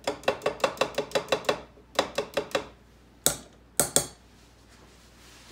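A fine-mesh strainer being tapped against the rim of a glass measuring cup to knock the last buttermilk out of the butter. A quick run of about a dozen light metallic clinks comes first, then three more, and two sharper knocks near the end.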